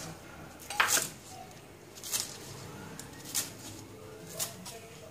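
Kitchen knife chopping green onions on a thick round wooden chopping block: four separate sharp chops about a second apart, the first the loudest.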